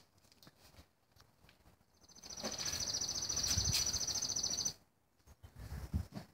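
Pneumatic impact wrench running on a wheel lug nut: one rapid rattling run of about two and a half seconds, starting about two seconds in. A few short knocks follow near the end.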